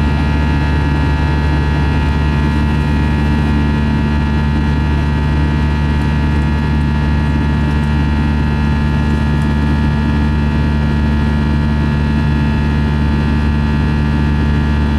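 Airbus A321 jet engines and airflow heard from inside the cabin during the climb after takeoff: a loud, steady drone with a layer of steady high tones that does not change.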